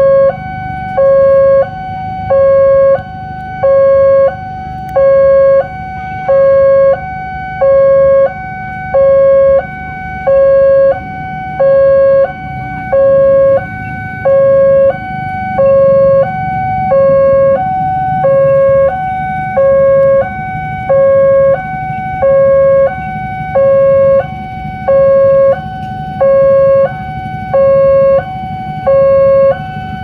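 Railway level-crossing warning alarm from a horn loudspeaker on the crossing signal: an electronic two-tone signal, a lower, louder tone and a higher tone alternating in an even cycle of about 1.3 s. It sounds while the lamps flash and the barrier is down, warning that a train is approaching.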